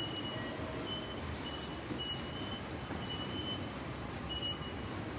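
Steady background hiss of a station concourse in the rain, with short high electronic beeps repeating at uneven intervals.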